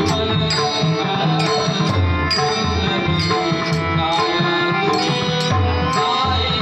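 Slow-tempo Marathi bhajan accompaniment: pakhawaj and tabla drums with brass hand cymbals (tal) struck about twice a second, over steady held notes.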